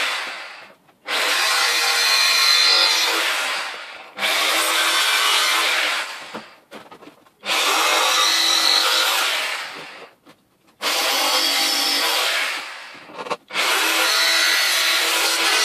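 Makita jigsaw cutting a hole in a thin metal panel: a harsh, loud buzzing saw that runs in spells of two or three seconds, stopping and starting again four times as the cut is worked around and backed up.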